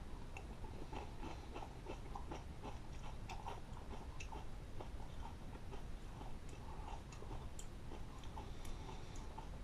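A person chewing a mouthful of Cinnamon Toast Crunch Blasted Shreds, a sweetened shredded whole-wheat cereal in milk: faint, irregular crunching and crackling. The crunch is the kind the eater calls kind of iffy.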